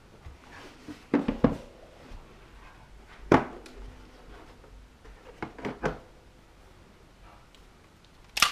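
Plastic hard pistol case being opened and a semi-automatic pistol lifted out: a pair of latch clicks, a loud snap, then a few lighter clicks and knocks of handling. Near the end comes the loudest, sharpest metallic clack from the pistol's action being worked.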